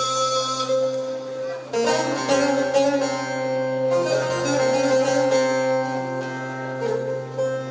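Bağlama (long-necked Turkish saz) played without singing: bright plucked melody notes over steady held lower tones, with a new run of notes starting about two seconds in.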